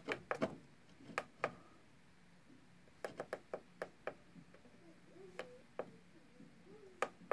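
Irregular sharp clicks, several in quick succession a few seconds in: buttons being pressed on the TB6560 stepper controller's keypad to set a slower feed speed.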